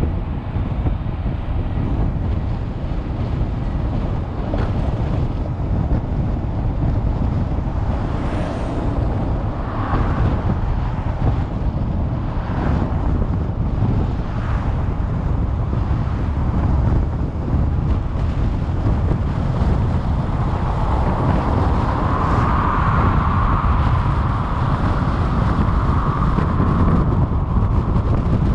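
Steady road and wind noise of a car driving on a paved highway, heard from inside the cabin as a low rumble. A few faint whooshes come from vehicles passing in the other lane, and a brighter hiss swells for several seconds about three-quarters of the way through.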